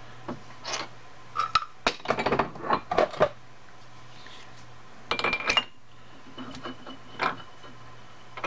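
Steel tooling clinking and clattering in several bursts as a drill chuck is fetched and handled, some knocks ringing briefly, over a steady low hum.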